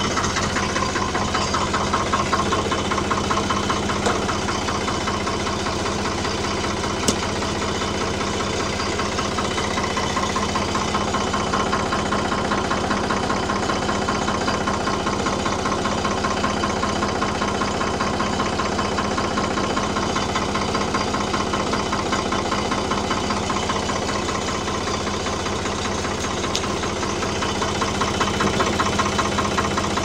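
1975 Ford 550 backhoe's diesel engine idling steadily, with one sharp click about seven seconds in.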